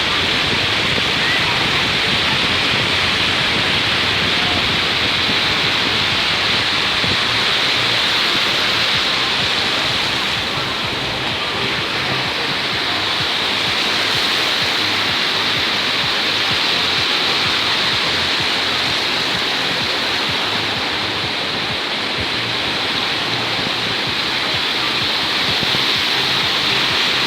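Black Sea surf washing onto the beach: a steady rushing hiss that swells and eases slightly.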